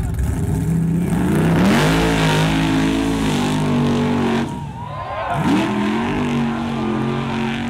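Lifted mud-racing pickup truck's engine revving hard as it charges through the mud pit. It climbs in pitch about a second in and holds, drops briefly after about four and a half seconds, then climbs again and holds.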